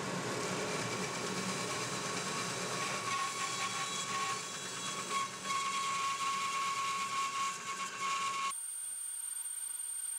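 Bandsaw cutting a small block of Vera wood (a hard, dense tropical hardwood): a steady run of blade and cutting noise with a steady mid-pitched tone. About eight and a half seconds in, the fuller cutting sound stops, leaving a thin high whine.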